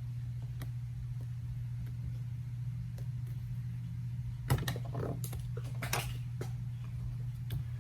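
Small scattered clicks and taps of tools and parts while the display of an iPhone 8 is being pried open, with a sharper click about four and a half seconds in and a few more close together around six seconds. A steady low hum runs underneath.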